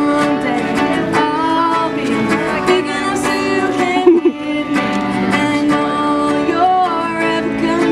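A woman singing a song while strumming guitar, played live through PA speakers.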